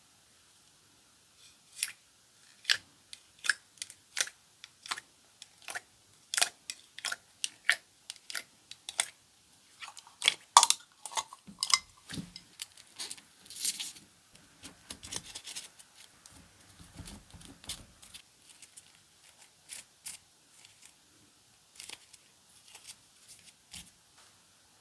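Slime being pressed and stretched by hand, giving sharp clicking pops about twice a second. Around ten seconds in they thicken into dense crackling for a few seconds, then thin out into softer, sparser clicks and squishes.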